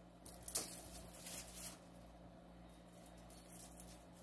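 A single light knock about half a second in, then a few faint handling sounds, over a steady low hum.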